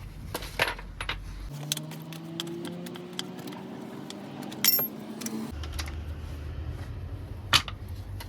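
Metallic clicks, clinks and rattles of the Stihl MS 170 chainsaw's chain and parts being handled during a chain change. A faint steady low hum runs for a few seconds in the middle.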